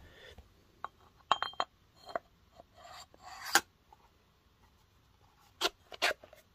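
Light metallic clicks, clinks and a short scrape as a piston ring is worked out of a Polaris 700 two-stroke cylinder bore and the cast cylinder is handled on the bench. One clink about a second in rings briefly, and there are two sharp clicks near the end.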